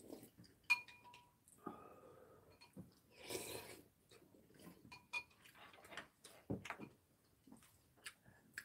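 Quiet eating sounds: metal spoons clinking against ceramic bowls, with a short ringing clink about a second in and another about five seconds in, small clicks of utensils, and a brief slurp of noodle soup in the middle.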